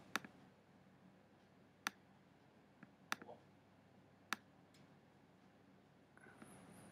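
Computer mouse clicking: four sharp single clicks, roughly a second and a half apart, against near silence.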